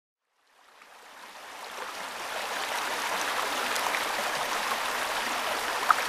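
Shallow mountain river babbling over stones, heard close up with the camera in the water; it fades in from silence over the first two seconds or so, then runs steady, with small splashes and one sharper splash near the end.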